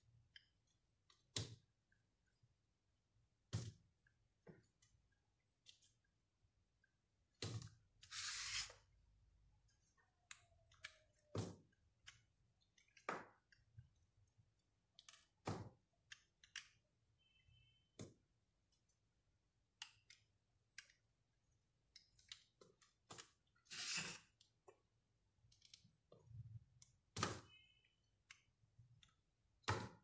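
A knife blade cutting through a dry bar of soap: sharp clicks and snaps every second or two as slices crack off, with two longer scraping cuts.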